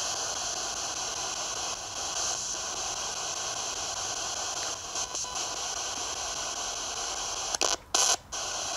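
Steady white-noise hiss from a ghost-hunting device left running to let spirits talk through it, cutting in and out choppily for a moment near the end.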